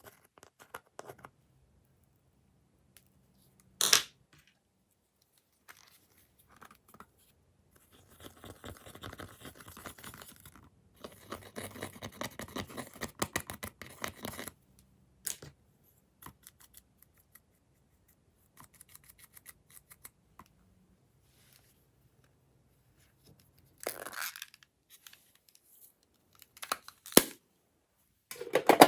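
Glossy slime being worked by hand, making intermittent sticky crackling and clicking. There is a sharp snap about four seconds in, a long run of crackling through the middle, and more snaps near the end.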